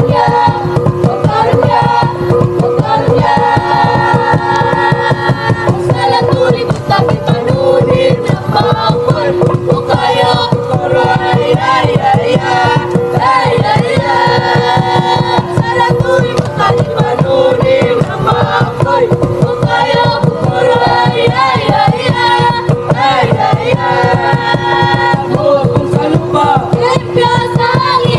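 Background music: a song with singing over a fast, steady beat.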